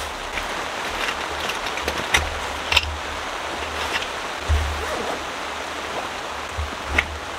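Steady rain on the tent with background music, and a few light clicks and rustles as a folding camp cot's fabric and frame are packed into its carry bag.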